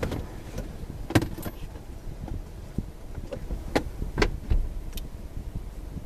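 Vehicle engine running, a low steady rumble heard from inside the cab, with several sharp clicks and knocks of things rattling or being handled; the loudest comes about a second in.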